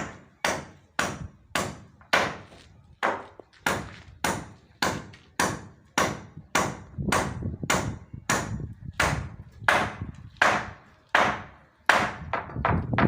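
Hammer blows on wooden roof rafters, a steady run of about two strikes a second, with a few quicker, lighter taps near the end, typical of nails being driven into timber.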